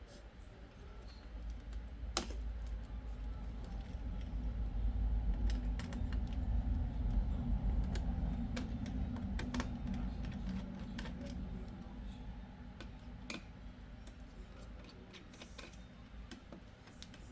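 Scattered small clicks and taps of laptop parts being handled during disassembly, over a low rumble that swells and then fades.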